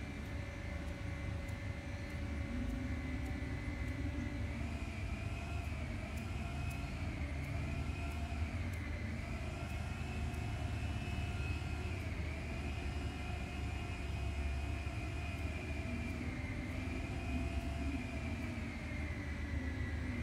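A steady background motor drone with a low rumble and two faint tones that waver slowly up and down.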